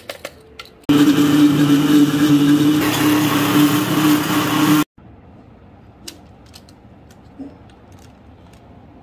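Countertop blender motor running at full speed for about four seconds, blending cream cheese batter until smooth: a loud steady hum with a high whine, stopping suddenly. A few light clicks come just before it starts.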